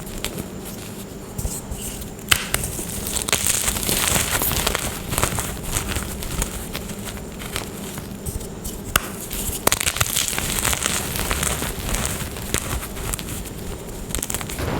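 Glittery gym chalk being crushed and crumbled: a dense, continuous crackling and crunching with a few sharper snaps, one about two seconds in and two more around nine to ten seconds.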